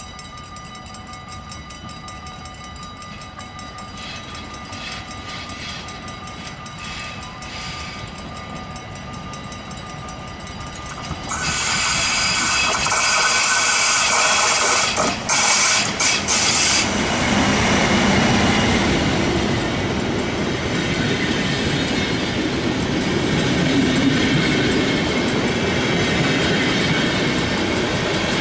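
A Deutsche Bahn electric locomotive approaches, getting steadily louder, and passes close by with a sudden surge of noise about eleven seconds in. It hauls empty NS passenger coaches that roll past with a steady rumble and the clatter of their wheels.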